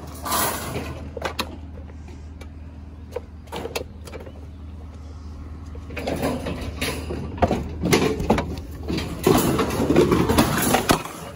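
Clanks, knocks and scraping of a top-loading washing machine's metal and plastic body being handled and loaded onto a utility trailer. A few separate knocks come first, then a busier, louder stretch of clattering about halfway through. A steady low engine hum runs underneath.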